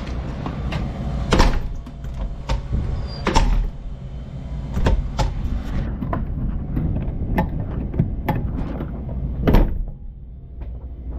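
Clicks and knocks from a door's freshly tightened lock and handle being worked, the door moving with it, over a steady low rumble. The loudest knocks come about a second and a half in and again near the end.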